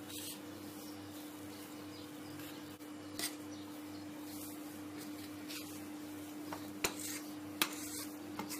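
Metal spatula scraping and clicking against a metal cake tin while spreading mousse, with a few sharp clicks in the second half, over a steady low hum.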